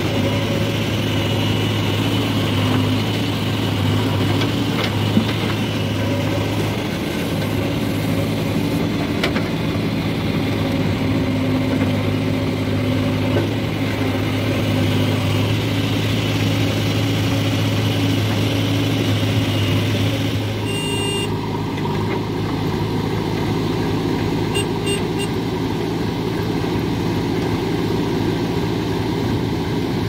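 JCB 3DX backhoe loader's diesel engine running steadily while the backhoe arm digs and swings buckets of wet mud. About two-thirds of the way through, the engine sound changes and settles.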